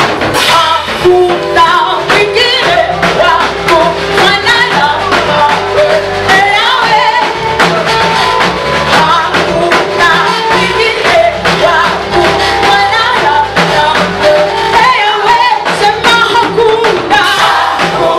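Church praise music: a Swahili gospel song sung over a band with a steady beat.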